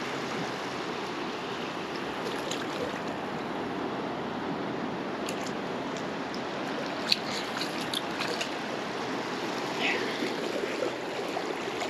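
Shallow ocean surf washing steadily up the beach, a continuous rushing hiss of water. A few light ticks and small splashes come in the second half.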